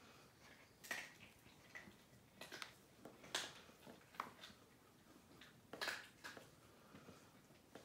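Large brown paper bag crackling and rustling in several short, sharp bursts as a cat and a small dog shift about inside it, the loudest about one, three and a half and six seconds in.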